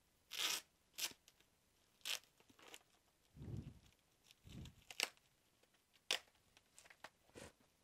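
Packaging being torn open and handled: a string of short ripping and crinkling noises of wrapping, with a couple of duller handling sounds in between.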